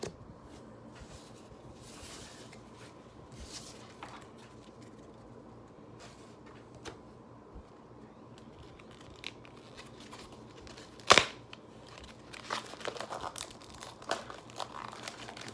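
Plastic blister packaging and foil booster-pack wrapper being handled and torn open. There are faint rustles at first, then one sharp tearing crack about eleven seconds in, followed by a stretch of crinkling near the end.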